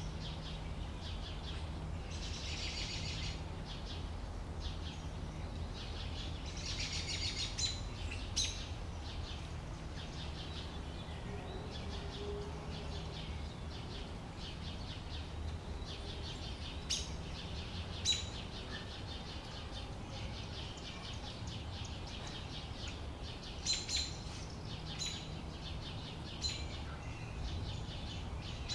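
Outdoor ambience of songbirds: several short trilling song phrases in the first eight seconds, then scattered sharp single chirps, over a steady low background rumble.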